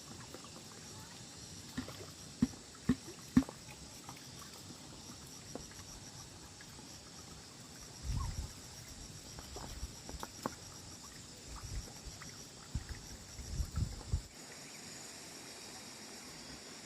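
Steady insect chirring with an even pulse, with a few sharp knocks about two to three and a half seconds in and duller thumps around eight and again around fourteen seconds.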